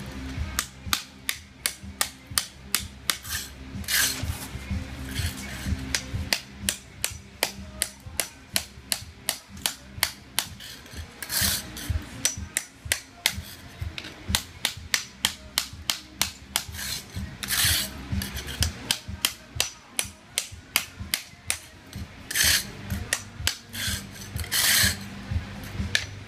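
Hammer striking a chisel held against the floor in a steady run of sharp blows, roughly two to three a second, chipping up ceramic floor tile and its mortar. A few longer scraping noises fall between the blows.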